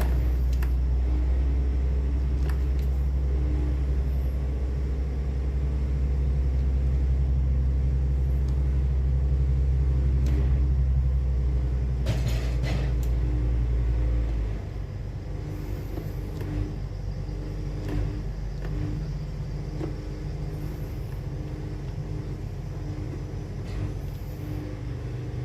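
Sawmill engine running steadily with a heavy low rumble, which drops to a quieter, lighter run about fourteen seconds in.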